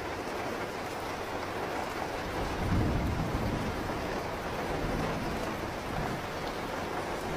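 Steady heavy rain, with a low roll of thunder swelling about two and a half seconds in and fading away.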